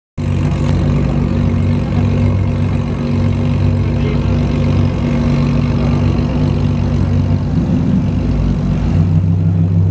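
Lamborghini Huracán's V10 idling steadily with a deep, even exhaust note; the idle pitch shifts a little near the end.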